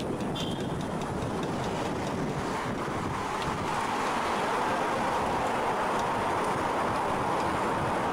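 Wind rushing over the microphone of a camera riding along on a moving road bicycle. A steady mid-pitched hum grows louder about three and a half seconds in.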